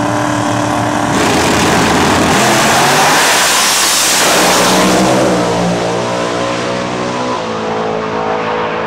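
Two drag cars, a twin-turbo Corvette and a supercharged muscle car, launching from the starting line about a second in and running at full throttle past, loudest around three to four seconds in. The engines then fade down the track, their pitch dropping.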